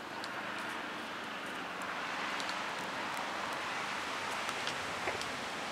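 Steady outdoor hiss like wind, growing a little louder about two seconds in, with a few faint scattered ticks.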